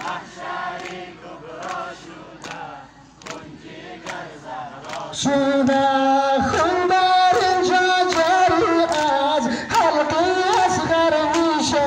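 A crowd of Muharram mourners performing matam, hands striking in unison at a steady beat under murmured chanting. About five seconds in, one voice loudly begins singing a lament (noha), and the strikes keep time beneath it.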